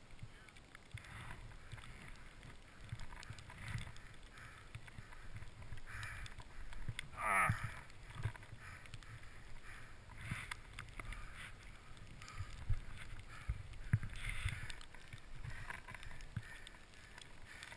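Skis turning through deep powder snow: soft swishes every few seconds over a low wind rumble on the camera's microphone. A short sound sliding down in pitch comes about seven seconds in.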